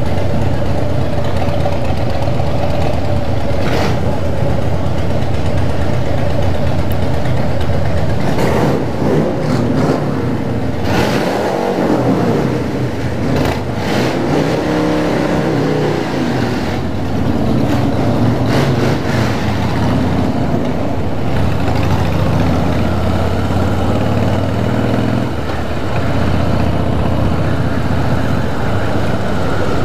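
Motorcycle engine running steadily while riding, its note rising and falling with the throttle around the middle.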